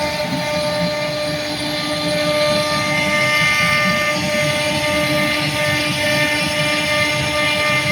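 CNC router spindle running at a steady high-pitched whine while it carves, with the rough, uneven noise of the cutter working through the panel.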